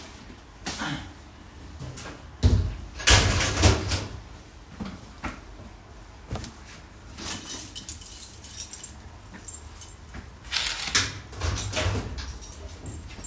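Clothes and belongings being handled at a metal locker: rustling fabric with irregular clicks and knocks, the loudest knocks about two and a half to four seconds in.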